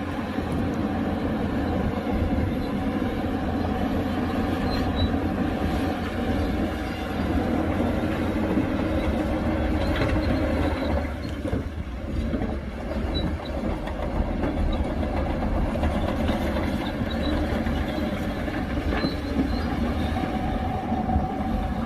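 Heavy diesel earthmoving machinery running steadily with a deep engine rumble and a few faint metallic clanks.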